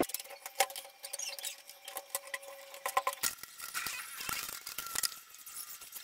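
Immersion heater rod's threaded head being screwed by hand into a PVC pipe fitting, fitted with a rubber washer: many light clicks and ticks from plastic and metal, with a thin squeak at times.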